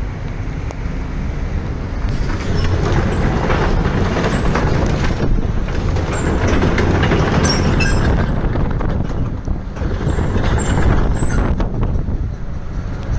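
Cat 320D L excavator's six-cylinder diesel engine running under hydraulic load as the boom and bucket are worked, louder from about two seconds in. A few brief high squeaks come near the middle.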